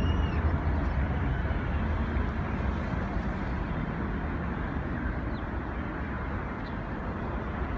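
Jet airliner's engine rumble slowly fading as it climbs away after takeoff.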